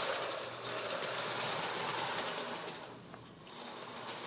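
Motorized toy train running along its track, a steady motor whir with wheel clatter. It dips quieter a little past halfway through, then comes back up.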